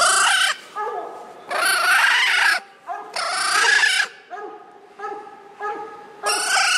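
Coonhound barking treed at a raccoon up a tree: loud, drawn-out barks about a second long, three or four in a row with short gaps, and quieter barking between them.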